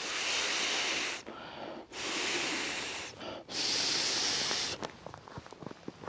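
Three long, hard breaths blown into the valve of a self-inflating sleeping mat to top it up, each a hissing rush of air about a second long with short pauses between.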